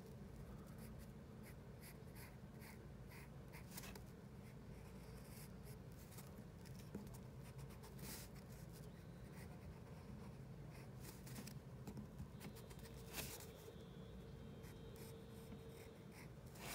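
Faint scratching of a graphite pencil sketching on paper, in short irregular strokes.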